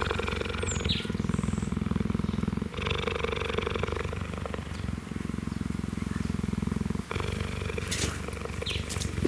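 Cheetah purring close up: a steady, low, rapidly pulsing rumble with short breaks about three and seven seconds in. It is a contented purr while he is being scratched.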